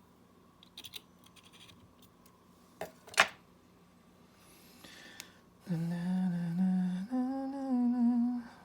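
A person humming two held notes, the second a little higher, after a few small clicks and one sharp tap.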